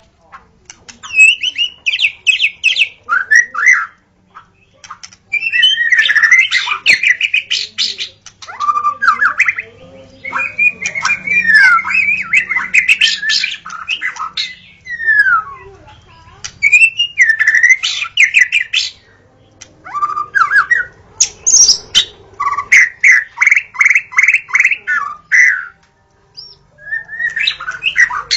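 White-rumped shama singing in loud, varied phrases of whistled glides and rapid runs of repeated notes, broken by short pauses.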